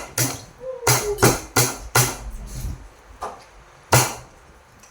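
An irregular series of sharp chopping strikes of a blade on wood, about eight in all, the loudest about four seconds in.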